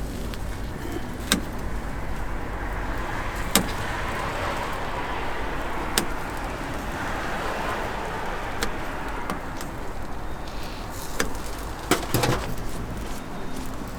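Steady street-traffic rumble, with about seven sharp clicks scattered through it, two close together near the end.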